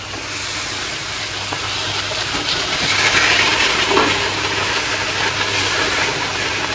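Chicken karahi sizzling in a wok as it is stir-fried with a spatula: a steady frying hiss that grows louder about three seconds in, over a low steady hum.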